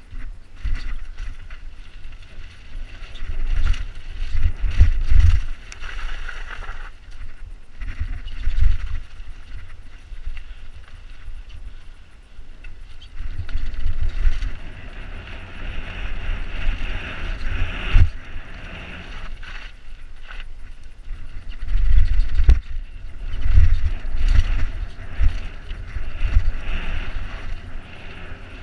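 Mountain bike ridden fast down stone steps and a gravel footpath: tyres crunching and the bike rattling over the bumps, with a sharp knock about 18 seconds in and another about 22 seconds in. Wind buffets the bike-mounted camera's microphone in a low rumble that swells and fades.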